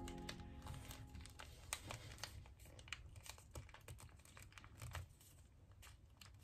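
Faint rustling and crinkling of origami paper being folded by hand, with many small, irregular clicks as the paper creases and is pressed.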